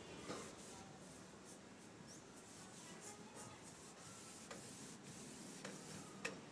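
Faint scratching and rubbing of a brush and cloth over a teak-veneer plywood cabinet door as politur finish is worked on, with a few light clicks, the sharpest near the end.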